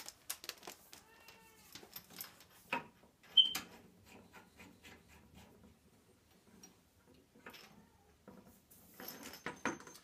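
A rubber washing-machine hose is handled and its metal coupling hand-threaded onto a brass service valve, making scattered light clicks and rubbing, with one sharp clack about three and a half seconds in. A faint short squeal comes about a second in.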